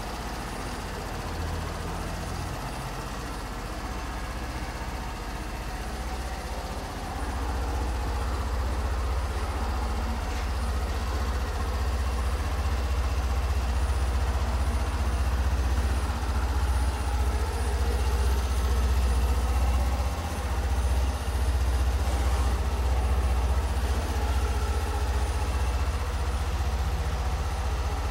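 Kawasaki J125 scooter's 125cc single-cylinder four-stroke engine idling with a steady low rumble, which gets louder about seven seconds in.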